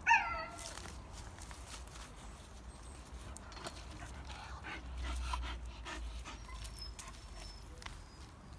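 Hokkaido dog giving one short, high whine that falls in pitch, followed by faint clicks and rustling as the dog moves about.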